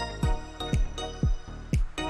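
Background music with a steady electronic beat: a deep kick drum about twice a second under held synth tones.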